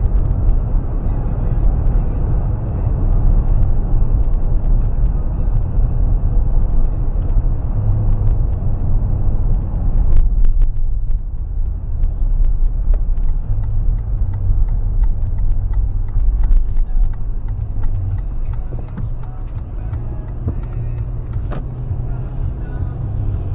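Cabin noise inside a fifth-generation Toyota 4Runner on the move: a steady low road and engine rumble with scattered light clicks and rattles. The rumble eases about ten seconds in.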